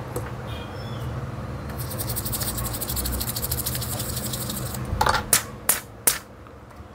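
Repair-bench sounds: a steady low hum under a fast, even, high-pitched rasping tick that runs for about three seconds, then four sharp clicks in quick succession about five seconds in.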